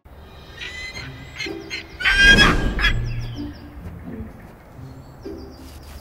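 Honking calls: a few short honks in the first second and a half, then one loud, longer honk about two seconds in, over soft background music.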